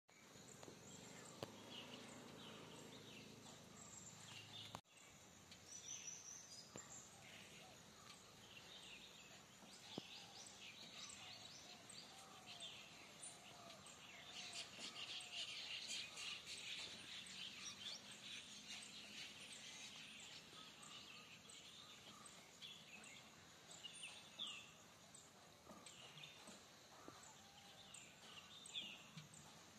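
Faint outdoor background with many short, high chirps scattered throughout, thickest about halfway through.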